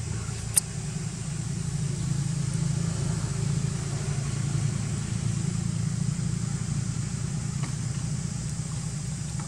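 A steady low motor rumble, with a single sharp click about half a second in.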